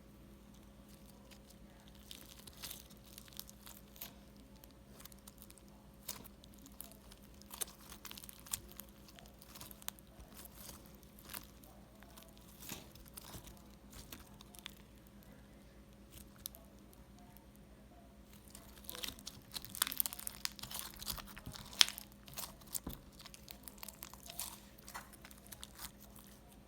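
Crunchy slime, mixed with fruit chips and white beads, being squeezed and worked by hand: irregular small crackles and pops, growing denser and louder about three quarters of the way through.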